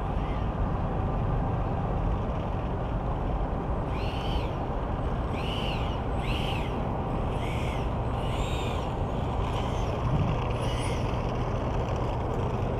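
Electric ducted-fan motor of a 64 mm Freewing F-22 RC jet running at low taxi throttle, a steady rushing hiss. In the middle come about six short rising-and-falling calls, a little under a second apart.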